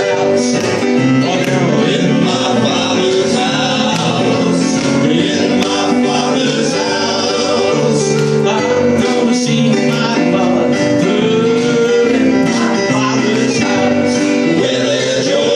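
Southern gospel male quartet singing in four-part harmony, tenor, lead, baritone and bass, with an electronic keyboard playing piano accompaniment.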